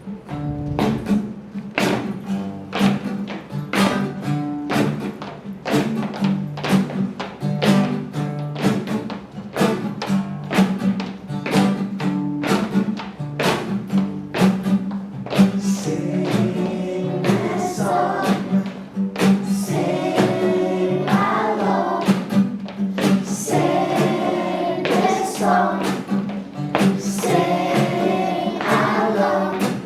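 Music: a steady beat of sharp plucked or struck notes over a held low note, with singing voices coming in about halfway.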